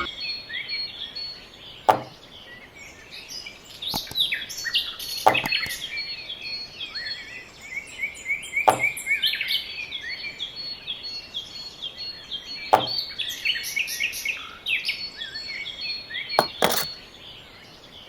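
Several birds chirping and singing, with a sharp click or knock about every three to four seconds, five or six in all.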